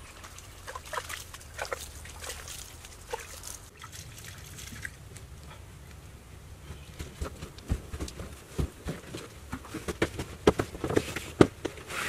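Bare feet scuffing and thudding on packed earth as people walk and climb down dug earth steps: scattered light scrapes and taps at first, then a busier run of steps with a few heavier thumps in the second half.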